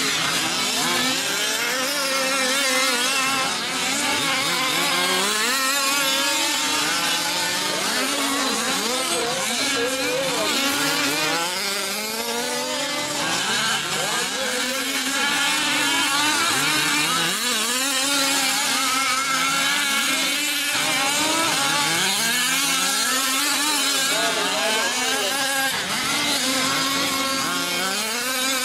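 Several 5th-scale RC trucks' small two-stroke gas engines racing, their overlapping buzzy notes revving up and down continually.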